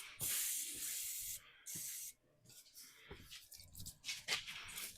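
Aerosol brake cleaner can spraying in two short squirts, about a second long and then a brief one, from a nearly empty can, as a starting aid for a small engine; faint clicks and rattles of handling follow.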